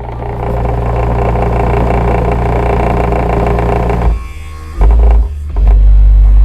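Bass-heavy music played loud through a car audio subwoofer system. A busy midrange passage over the bass gives way about four seconds in to a short drop, then the deep bass comes back in.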